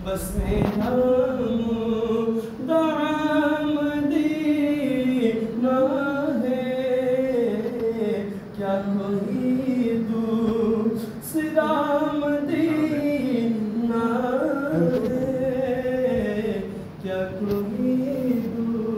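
A man singing an Urdu naat unaccompanied, in long drawn-out phrases whose notes bend and hold, with short breaks for breath between phrases.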